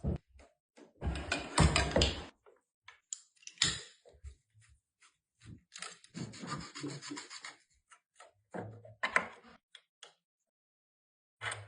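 Irregular rubbing and scraping with a few short knocks, from hands working copper pipe and tools. The loudest scrapes come about a second or two in, and a longer scrape follows around the middle.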